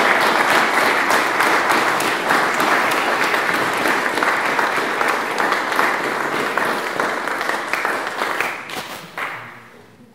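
Audience applauding: dense, steady clapping that thins out and fades away near the end.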